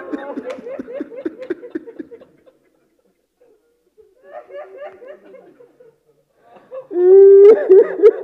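A man sobbing into a microphone in grief: short catching cries in quick rhythm that fade away after about two seconds, return faintly, then break into a loud wail near the end.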